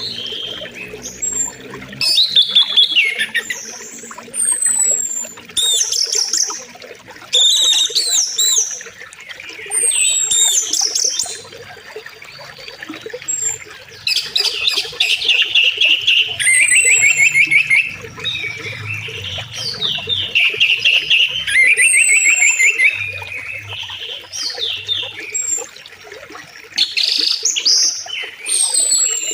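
Songbirds singing busily over the steady rush of flowing river water, with high falling whistles and fast rattling trills from several birds.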